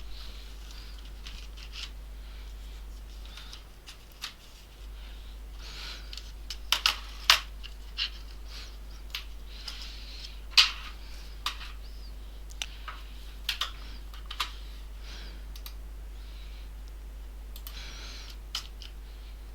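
Irregular sharp clicks of keys being pressed on a computer keyboard that isn't responding, its batteries running flat, over a steady low hum.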